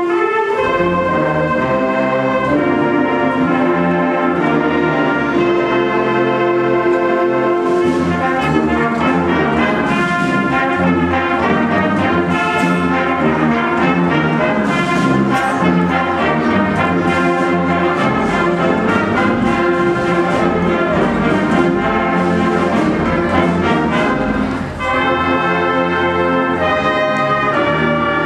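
High school concert band playing, with brass and flutes sounding full sustained chords; the band comes in loud at the start, and struck percussion accents sound through the middle.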